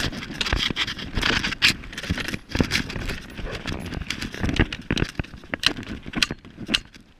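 Irregular scraping, rattling and sharp clicks of gear being handled and shifted about inside a car, close to the microphone.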